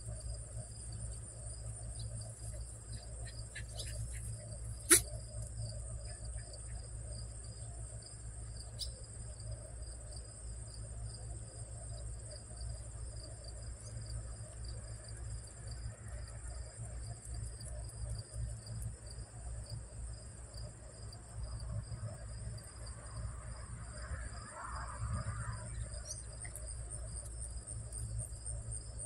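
Steady chorus of insects in the evening, a pulsing high-pitched trill that keeps on without a break, over a low steady rumble. A single sharp click sounds about five seconds in.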